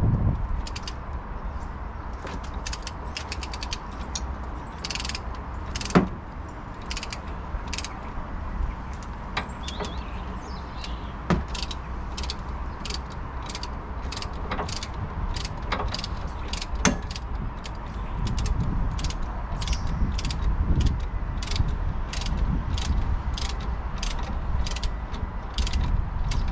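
Socket ratchet clicking in short runs, a few clicks a second, as a 17 mm suspension nut is turned, with three sharper knocks of the tool along the way.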